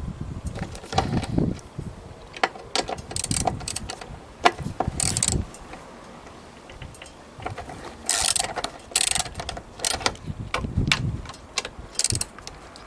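Ratchet wrench clicking in short runs, with knocks and clinks of tools and metal parts, as rusty bolts are undone on a lawn mower engine to get at the flywheel.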